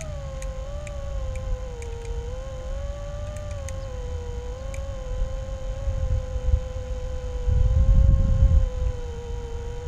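Brushless motors and propellers of an iFlight Nazgul5 HD 5-inch FPV quadcopter whining in a steady cruising tone that wavers slightly in pitch. Wind rumbles on the microphone underneath, gusting louder about seven and a half seconds in.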